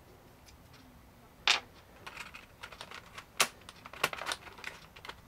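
Clicks and taps of small screwdriver parts being handled in a plastic precision bit case: one sharp click about a second and a half in, then a scatter of lighter clicks with two more sharp ones near three and a half and four seconds.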